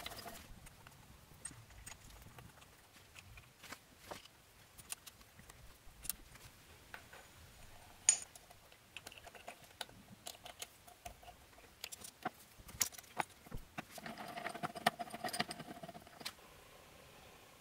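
Scattered light metallic clicks and taps as aluminium soft jaws are handled and seated against the steel jaws of a machine vice. One sharper clink comes about eight seconds in, and a denser run of clinks and rubbing follows near the end.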